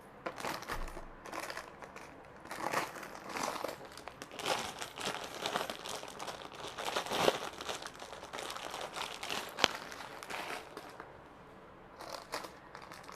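Jewellery packaging crinkling and rustling in irregular bursts as it is handled and opened, with two sharp clicks in the second half.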